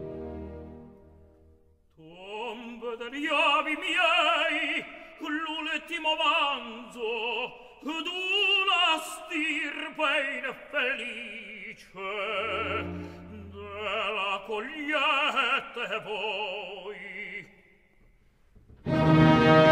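Operatic tenor singing a slow solo line in Italian opera with wide vibrato and almost no accompaniment. An orchestral chord fades out at the start, a low note sounds briefly near the middle, and loud brass-led orchestra comes in just before the end.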